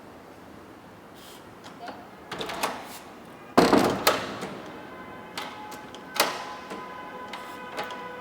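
Smart door lock and door hardware being worked: a few clicks, then a loud clunk of the latch and handle about three and a half seconds in, followed by more clicks and a steady electronic tone from the lock.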